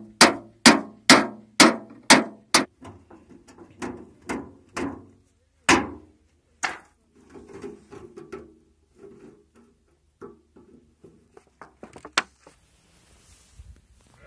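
Hammer striking a steel chisel that is cutting through the top of a thin sheet-metal tin, about two sharp metallic strikes a second at first. After that come a few more spaced blows and lighter knocks and clatter of the tin.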